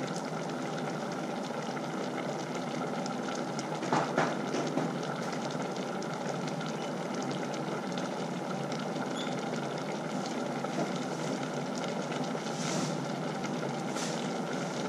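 Pot of mushroom curry boiling on the stove, a steady bubbling hiss. A few knocks about four seconds in.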